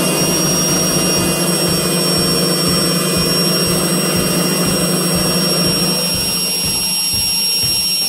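Weissgauff WMI 6128D built-in front-loading washing machine running the final spin of its super-quick wash: a steady motor and drum hum with a low pulse about three times a second, thinning slightly about six seconds in.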